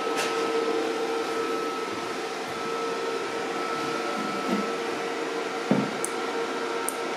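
Cooling fan of a Stahlwerk MIG 135 M IGBT inverter welder running just after switch-on: a steady whir with a constant hum. A few light clicks near the end.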